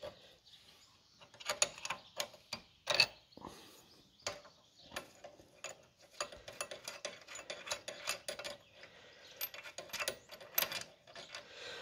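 Spanner work on metal nuts: a run of irregular, sharp metal clicks and clinks, packed closer together in the middle.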